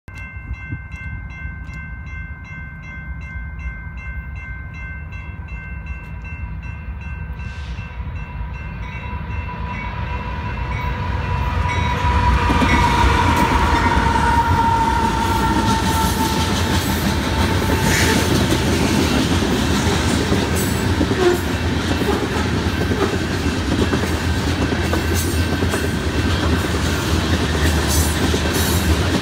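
A loaded coal train passing a road grade crossing. A diesel locomotive's air horn sounds steadily over rapidly ringing crossing bells, grows louder, and drops in pitch as the locomotives pass about 13 to 16 seconds in. After that, the heavy rumble of the train and the clickety-clack of the loaded coal hoppers' wheels fill the rest.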